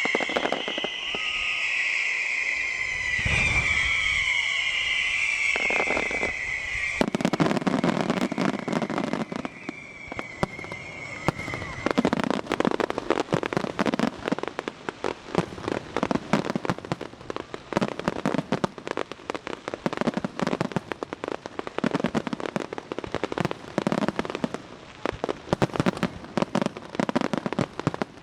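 Aerial fireworks: a high whistling tone and a few booms for the first several seconds, then dense crackling of many rapid small pops from about seven seconds in, growing thicker near the middle and continuing.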